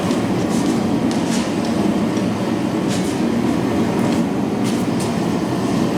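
Propane forge burner running, a steady low rushing noise, with a few faint clicks over it.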